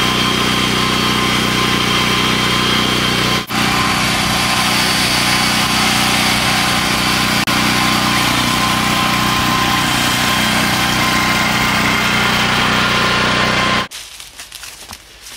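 Small engine running steadily at idle. It drops out briefly a few seconds in and cuts off abruptly near the end, leaving faint crackling and rustling.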